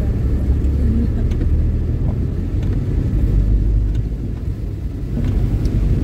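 Car cabin noise while driving slowly on a wet road: a steady low rumble of engine and tyres, with a few faint ticks.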